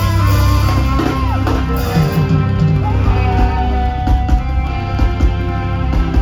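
Live reggae band music with a steady, heavy bass line and electric guitar.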